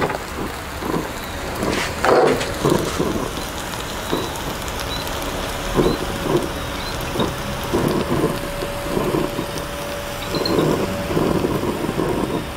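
Pancake batter sizzling in a hot frying pan, with a spatula scraping and pushing it around in irregular strokes.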